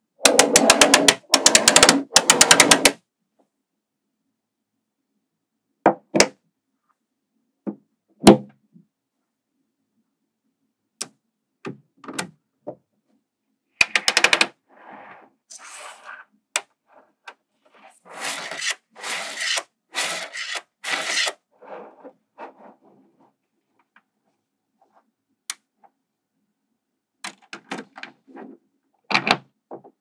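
Small magnetic balls clicking and rattling against one another as they are handled and snapped into place. The clicks come in bursts with silent pauses between: a dense run in the first three seconds, single clicks now and then, longer rattling runs from about 14 to 22 seconds, and more clicks near the end.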